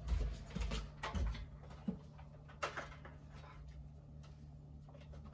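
A child's footsteps going down wooden stairs: a few soft, low thuds in the first second or so, then a couple of light clicks and faint room tone.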